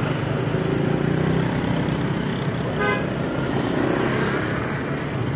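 Street traffic: motorcycle and car engines running close by, with one short horn beep about three seconds in.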